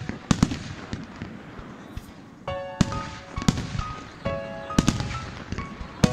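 Aerial firework shells bursting overhead in a string of sharp bangs, several of them close together.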